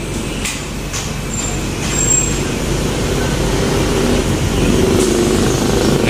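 Heavy diesel truck engines and street traffic, growing louder as a truck passes close by. A thin high squeal sounds briefly about one and a half to two seconds in.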